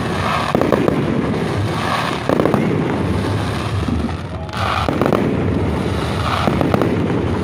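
Fireworks display: aerial shells bursting overhead in quick succession, about four bursts a second or two apart, each with a spray of sharp pops.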